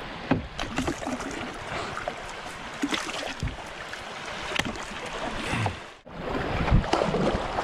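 Kayak paddle strokes splashing, with river water rushing over a shallow riffle under the hull. The sound drops out briefly about six seconds in and comes back louder.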